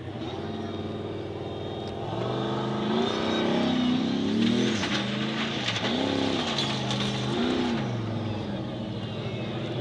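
Formula Offroad hill-climb buggy's engine working hard on a steep dirt climb. It holds steady revs at first, then about two seconds in the revs swell and drop about five times as the driver blips the throttle for grip, with a few sharp clicks in the middle.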